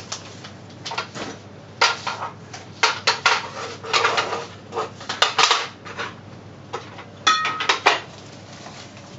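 Paintbrushes and pens rattling and clinking in jars as they are rummaged through, in uneven clusters of sharp clicks. About seven seconds in, one clink rings on briefly.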